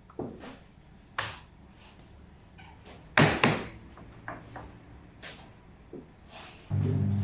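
Dough being worked with a rolling pin on a floured wooden work table: scattered soft knocks and slaps as the pin rolls and the flattened dough rounds are lifted and dropped, the loudest a pair about three seconds in. Near the end a steady motor hum starts up.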